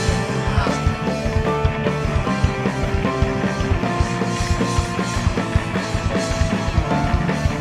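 Live rock band playing an instrumental passage, with electric guitars over a steady, driving drum kit beat and bass, and no vocals.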